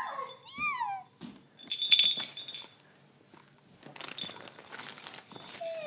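A dog whining in short rising-and-falling whimpers near the start and again briefly near the end. A loud jingling clink about two seconds in is the loudest sound.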